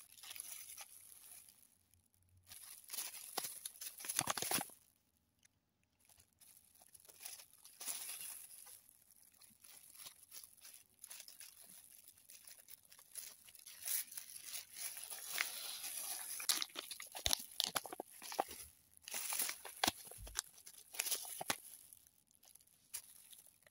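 Thin disposable plastic gloves and Kinder Joy plastic packaging crinkling and rustling in irregular bursts as hands handle an opened egg and its toy, with small plastic clicks between them.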